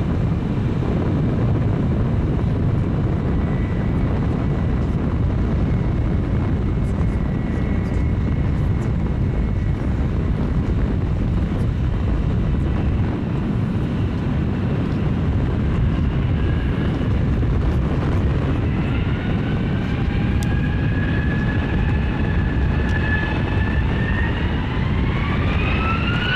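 Airbus A321 jet engines running with a steady low rumble. About three-quarters of the way through, a whine rises and keeps climbing in pitch as the engines spool up toward take-off thrust.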